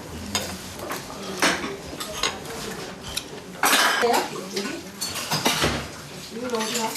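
Spoons clinking and knocking against bowls as people eat a meal at a table, with irregular sharp clinks and a few faint voices in the background.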